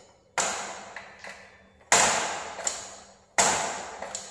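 Home-built trike's metal steering assembly swung from side to side, giving four sharp metallic knocks about a second and a half apart, each rattling away, with fainter clicks in between.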